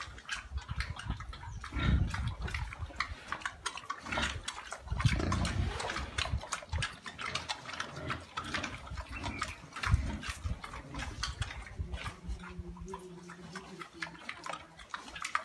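Pigs grunting in a concrete pen, with many short clicks and knocks throughout and a few louder low thuds.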